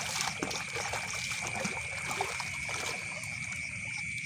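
Water trickling and splashing in shallow paddy water, over a steady high-pitched drone of night insects.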